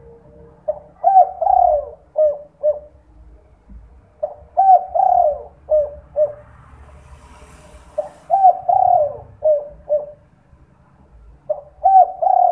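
Spotted dove (derkuku) singing its 'kuk 2' song: a phrase of rising-and-falling coos ending in two short 'kuk' notes, repeated about every three and a half seconds, three full times with a fourth starting near the end.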